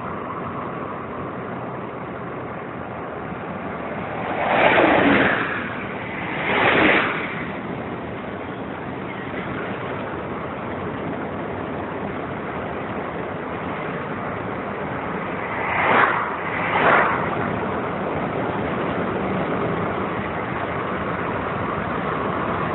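Steady road and engine noise from a moving vehicle, with four loud whooshes in two pairs, one pair about a fifth of the way in and the other about two thirds of the way in.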